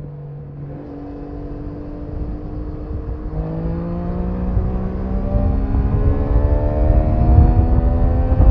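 Triumph Daytona 660's three-cylinder engine and exhaust pulling up through the revs. The pitch climbs steadily and the sound grows louder toward the end.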